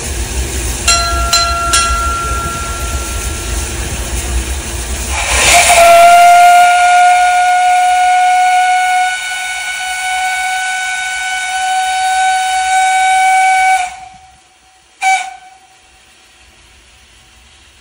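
Narrow-gauge steam locomotive hissing steam, with a few short whistle pips. About five seconds in comes a loud blast of steam, then a long steady whistle blast of about eight seconds that cuts off sharply, followed by one short toot.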